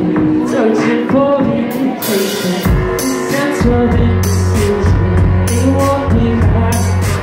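Live rock band playing, with a male lead vocal over drums and guitar. A heavy bass line comes in about three seconds in.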